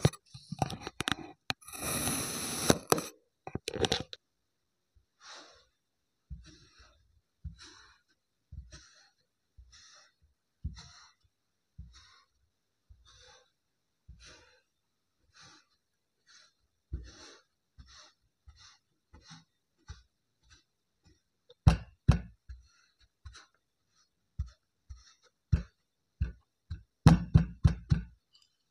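Knife blade slicing through kinetic sand, a gritty crunching for the first few seconds. Then a steady run of soft taps as the end of a cylindrical tube is pressed into the sand over and over, with a few louder thuds against the table near the end.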